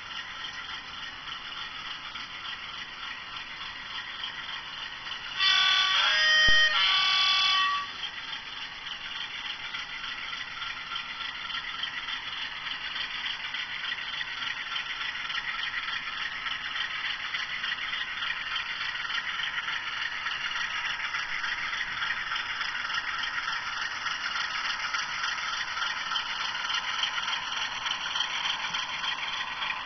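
Model Class 47 diesel locomotive running on a model railway, a steady whir and rattle of the model running along the track. About five seconds in it sounds a loud two-note horn lasting about two seconds. The running sound grows a little louder through the second half as the train moves off.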